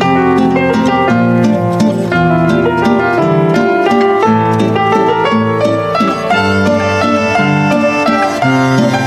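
Background instrumental music with plucked string notes.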